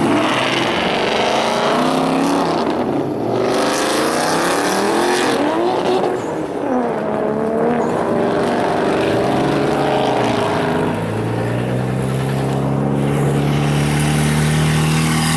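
Ford Mustang and Nissan Silvia S14 engines accelerating hard as the cars pull away, the pitch climbing and dropping back with each gear change. In the last few seconds a steadier, lower engine note holds and slowly rises.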